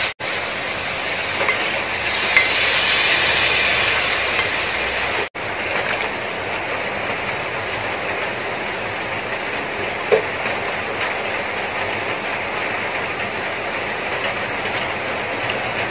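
Water poured into a hot pot of frying potato-and-onion masala, a steady rushing hiss that is strongest in the first few seconds. Then the watery curry is stirred with a wooden spatula, with a short knock about ten seconds in.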